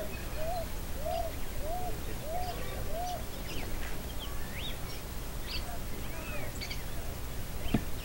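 A flock of feeding birds, red-cowled cardinals among them, calling: one bird repeats a low arched call about every half second for the first three seconds, then scattered high chirps and short rising and falling calls take over. A single sharp knock comes near the end.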